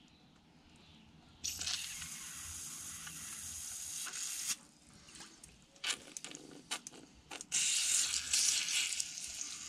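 Aerosol cleaner hissing as it is sprayed through the jets of a Ryobi lawnmower's carburettor: one long burst about a second and a half in, a few short spurts, then another long burst near the end. The spray is flushing black debris out of a partly blocked jet.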